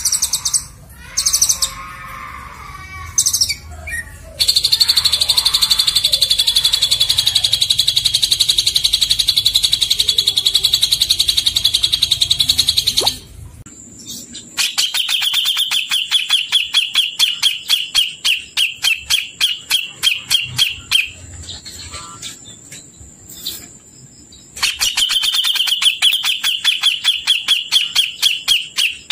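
Songbirds singing: a few short chirps, then a long, fast trill of rapidly repeated high notes. It breaks off about halfway through and is followed by another rapid, chattering trill, which pauses briefly and resumes near the end. A faint steady high tone sits behind the second trill.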